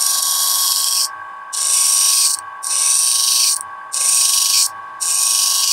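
Steel blade of an Ontario RAT 1 knife ground against a spinning grinding wheel in five passes of about a second each, a loud high hiss over the grinder's steady whine. Metal is being taken off to re-centre the edge bevel of the broken blade.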